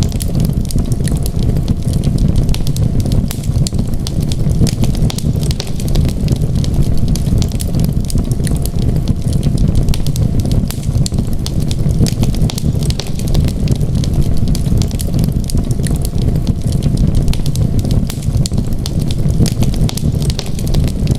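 Wood fire crackling: frequent small sharp snaps and pops over a steady low rumble.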